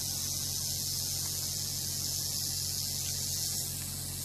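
Rattlesnake rattling its tail: a continuous, steady, high-pitched dry buzz.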